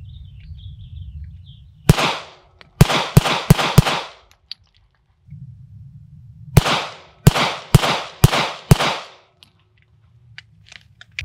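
Staccato P 2011 9mm pistol fired in rapid strings: five shots, a pause of about two and a half seconds, then five more, each a sharp crack with a short ringing tail. A few faint clicks follow near the end.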